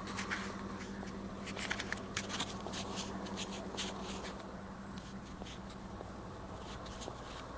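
Rustling and light clicks of a shopping bag and clothes being handled, over a steady low hum.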